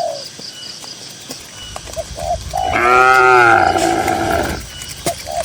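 A cow mooing once, one long call of about two seconds in the middle, dropping in pitch at the end.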